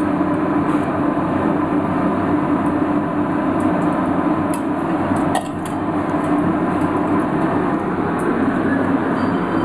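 Steady machine-like hum and rumble in a kitchen, with a few faint clicks and taps around the middle.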